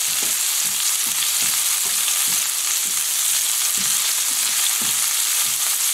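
Cod fillet and chopped garlic sizzling in hot oil and butter in a frying pan, a steady hiss as the garlic is briefly toasted. Now and then a spatula lightly scrapes and taps the pan as it stirs the garlic.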